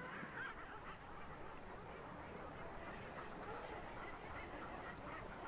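Seabird colony calling: many faint, overlapping short calls from a crowd of birds, heard at a distance over a steady hiss of wind and sea.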